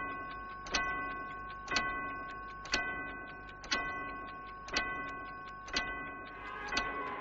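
Large clock ticking about once a second, each tick a sharp click followed by a ringing tone that fades away before the next. A hiss swells in the last second.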